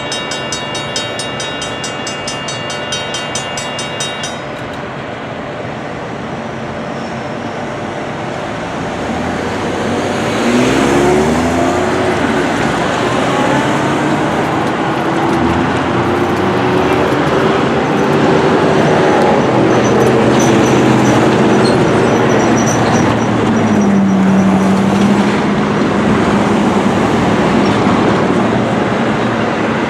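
Railroad grade-crossing bells ringing with rapid strikes, stopping about four seconds in. Then the steady rolling noise of a passing freight stack train, which grows louder about ten seconds in, with some whining tones from the train.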